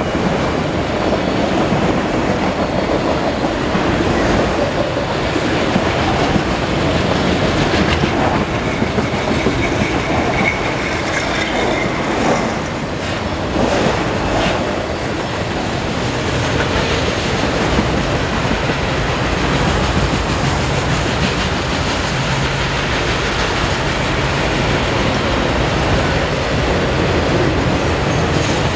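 Freight train of autorack cars rolling past at close range, a steady loud rumble of steel wheels on rail, with a few sharper knocks about halfway through.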